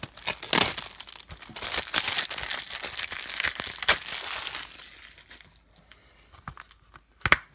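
Plastic shrink-wrap being torn and crumpled off a Blu-ray case: a dense crinkling that dies down after about five seconds, then a single sharp click near the end.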